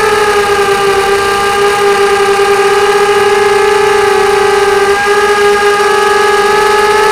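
QAV250 quadcopter's four brushless motors and propellers whining at a steady pitch, heard up close through the onboard camera. The pitch eases down slightly in the first second, then holds, with a brief dip about five seconds in.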